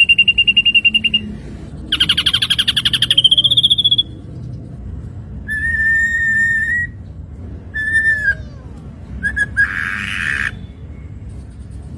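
Ashy drongo singing a varied string of phrases: a rapid trill, a buzzy rattle, a clear steady whistle, two short whistled notes, and a harsh buzzy note near the end.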